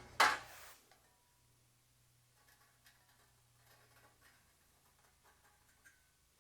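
A short noise right at the start, then near silence: room tone.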